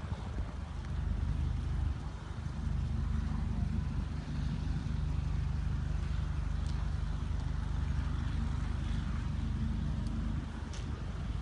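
A steady low engine-like rumble that drops away near the end.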